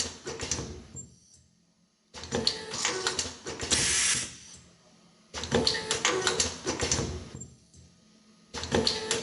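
Automatic ultrasonic zipper film welding machine cycling: a burst of rapid mechanical clicking and clattering about every three seconds, with a short hiss during one cycle.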